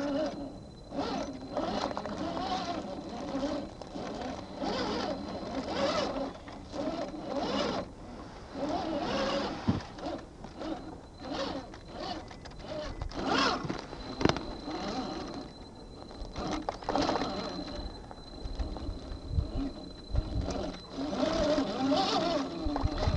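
RC4WD Trail Finder 2 scale crawler's electric motor and gear drivetrain whining, the pitch rising and falling with the throttle as it climbs, with its tyres crunching and scraping over dirt and rocks.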